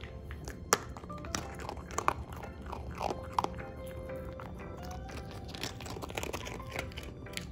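A bichon frise chewing a hard biscuit dog treat, with irregular sharp crunches, over background music.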